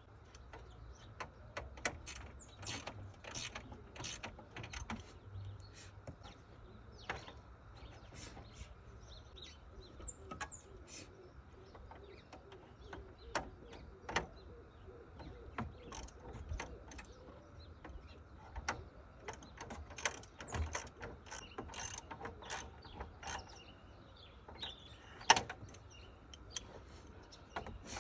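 Irregular clicks and knocks of hand work fitting the cooling fan assembly onto a VW Golf 5 radiator, with one louder knock near the end.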